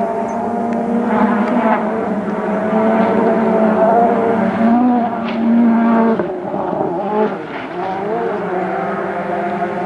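Rally car engine running at fairly steady revs, its pitch wavering only slightly.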